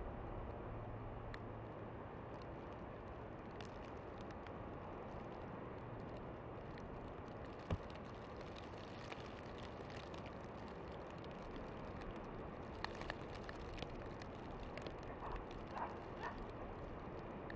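Outdoor ambience during a heavy snowfall: a steady rushing background with scattered light ticks, one sharper knock about eight seconds in, and a few faint short chirps near the end.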